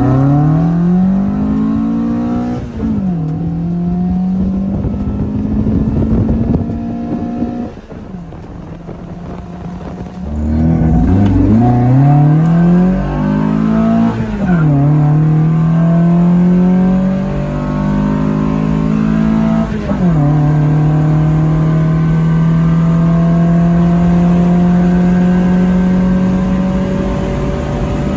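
1979 Fiat 124 Spider 2000's four-cylinder engine on dual 44 IDF carburettors, accelerating hard through the gears. The pitch climbs and drops sharply at each upshift, about four times. There is a short lift off the throttle about eight seconds in before it pulls again.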